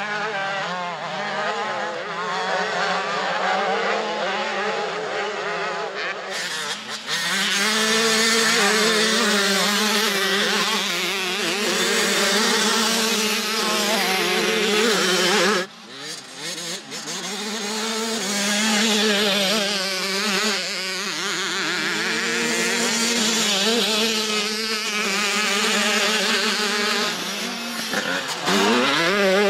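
Motocross bikes racing, their single-cylinder engines revving and shifting pitch as they accelerate and pass. The sound breaks off abruptly about halfway, and one engine revs up sharply near the end.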